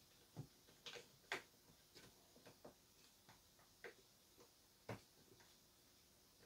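Near silence broken by about a dozen faint, irregular clicks and light taps of wood pieces and the clamp being handled on a workbench, the sharpest about a second in and near five seconds.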